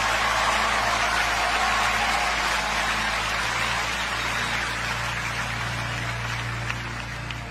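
Large audience applauding, the clapping slowly dying away.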